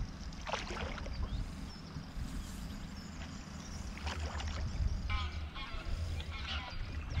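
Wooden otter-tail canoe paddle working through calm water: a few soft splashes and drips as the blade dips, pulls and lifts out. Under them is a low steady rumble.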